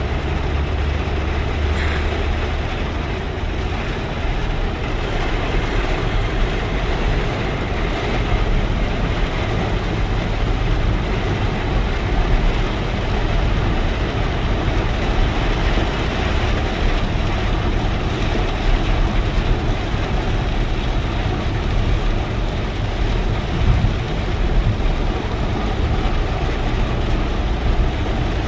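Steady rain falling, an even wash of noise with a constant low rumble underneath.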